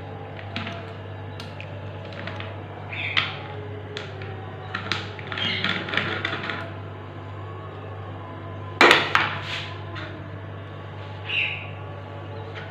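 Kitchen utensils clinking and knocking now and then over a steady low hum, with a flurry of small knocks midway and one sharp clatter about nine seconds in.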